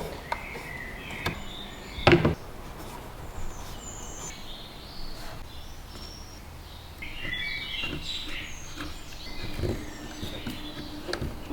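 Birds chirping, with several short chirps scattered through and a denser run of calls near the middle. There are a few sharp clicks or knocks, the loudest about two seconds in.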